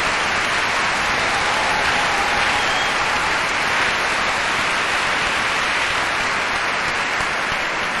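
Concert hall audience applauding steadily at the end of an orchestral performance, a dense, even clapping.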